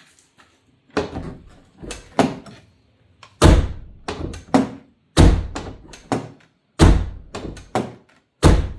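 Pickup truck door with a newly replaced latch and handles being opened and shut again and again: four loud slams with handle and latch clicks between them, the latch catching each time.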